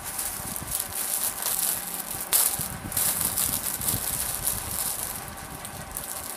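Garments being handled: rustling with a sharp click a little over two seconds in.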